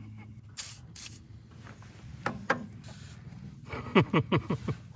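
A tight fastener on an outboard motor being unscrewed. There are two short hisses about half a second and a second in, then a quick run of squeaky scraping strokes near the end.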